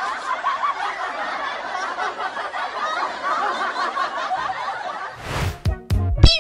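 Many people laughing together in a dense, continuous wash, like a crowd laugh track. It breaks off about five seconds in, and music with hard beats starts.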